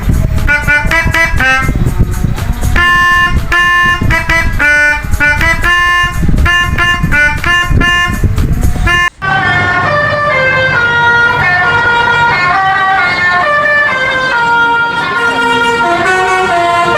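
Bus telolet horns, sets of electrically switched air trumpets, playing rapid multi-note tunes over the rumble of passing buses. A sudden cut about nine seconds in leads to a horn playing longer held notes that step up and down in pitch.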